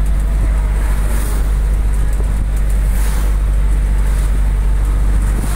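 Steady low rumble of a moving vehicle heard from inside the cabin: road and engine noise with a hiss of tyres and wind. The hiss swells briefly about a second in and again about three seconds in.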